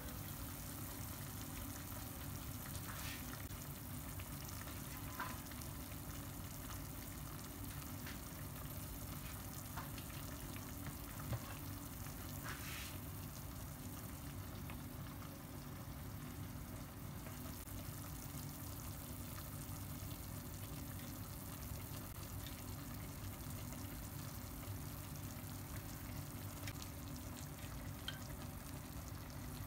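Green beans and pork sizzling softly in a lidded enamelled pot over a gas burner, a steady faint sizzle of braising. A few faint clicks and knocks.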